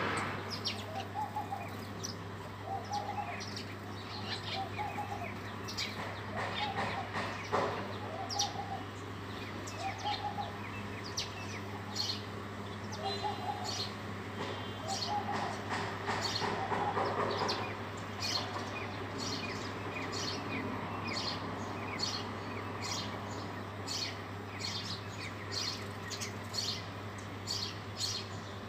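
House sparrows chirping, many short chirps overlapping and busier in the second half. A lower call repeats about once a second through much of the first half, over a steady low hum.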